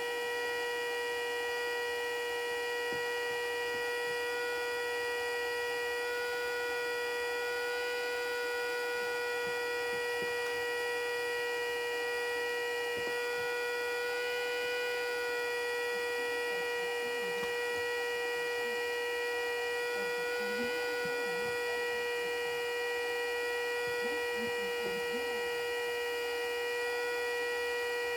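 Federal Signal Model 2A siren sounding a steady tone at full speed, holding one pitch with strong overtones and no wind-up or wind-down.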